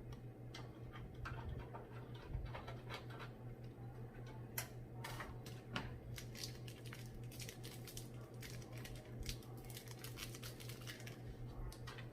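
Light clicks, taps and scratches of computer parts and cables being handled and fitted by hand, busiest in the middle, over a steady low hum.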